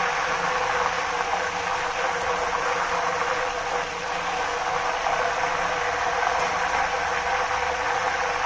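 Raw banana slices deep-frying in hot oil on high flame: a steady, dense sizzle and crackle as the water in the fresh, still-soft slices boils off, the early stage of frying before the chips dry out.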